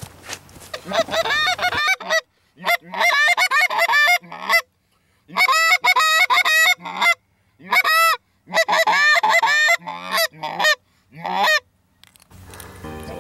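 A hand-blown goose call sounding rapid runs of honks and clucks, each note arched in pitch. The runs come in several bursts with short pauses between them.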